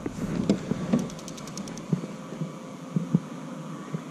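Soft, irregular low knocks on a 3 Waters Big Fish 120 fishing kayak, with a short run of rapid, evenly spaced clicks about a second in.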